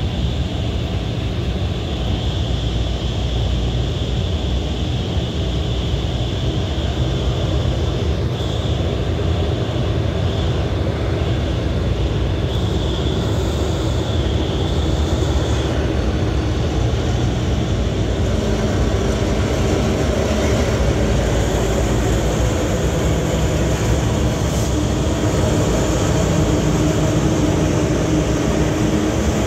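Alsthom diesel-electric locomotive and its passenger coaches running slowly: a steady low engine drone and rumble that grows a little louder, with a clearer hum in the second half.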